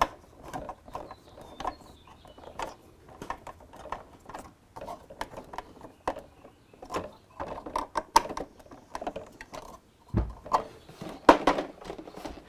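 Irregular small clicks and taps of a Keurig coffee maker's plastic housing being fitted onto its catches and screwed down.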